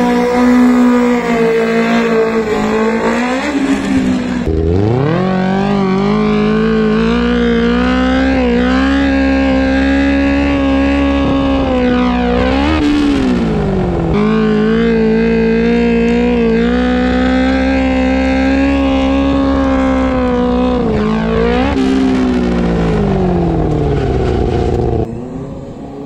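Honda CBR600 F4i's inline-four engine held at steady high revs through wheelies, its pitch climbing as the throttle opens and dropping as it is eased off, several times over.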